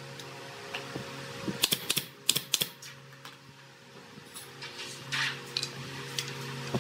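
A quick run of sharp clacks from a steel square and pine boards being handled on a concrete floor, then a short scrape of a board shifted across the concrete about five seconds in. A steady low hum runs underneath.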